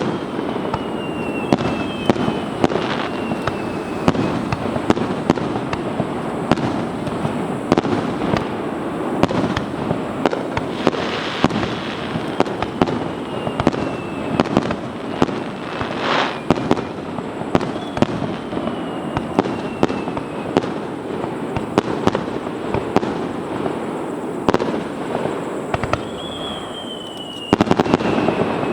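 Aerial fireworks display: a dense run of bangs and crackling bursts, with several whistles falling in pitch, and a louder cluster of bangs near the end.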